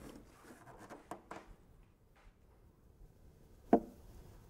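Fiberglass motorcycle fairing shell being handled and fitted over the front end: a few faint taps and rubs, then one sharp knock a little before the end as it is set in place.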